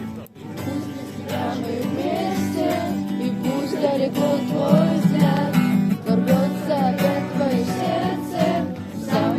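A group of voices singing a song to a strummed acoustic guitar, after a brief break just at the start.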